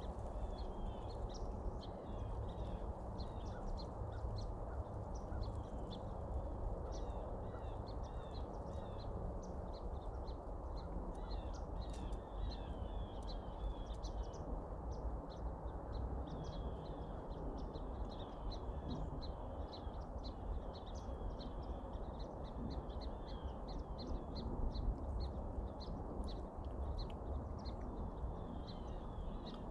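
A flock of birds calling: many short chirps and chatter, close together and continuous, over a steady low background rush.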